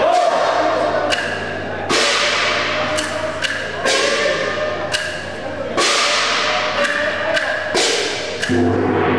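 Festival drum and hand gong of a Nagasaki Kunchi ship float, struck about a dozen times at an uneven pace, each hit ringing on.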